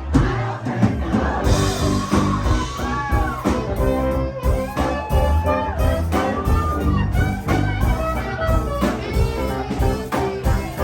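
Live rock band playing an instrumental break with no singing: drums, bass and guitars, with a lead line that bends up and down in pitch over the beat.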